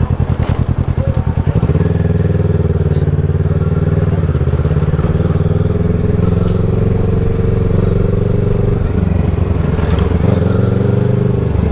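Motorcycle engine running under way, its exhaust beat slow and pulsing at first, then picking up and running steadily from about two seconds in.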